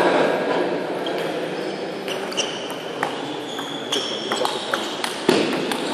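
Table tennis rally: the celluloid ball clicking off the bats and the table in quick, irregular strikes, starting about two seconds in.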